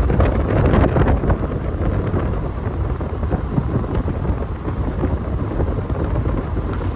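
Road and wind noise from a moving car, with wind buffeting the microphone in a steady low rumble.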